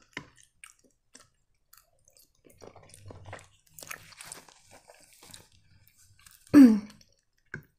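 Close-miked, faint wet chewing of a mouthful of creamy penne Alfredo, with small mouth clicks. Near the end comes one short, louder vocal sound from the eater, falling in pitch.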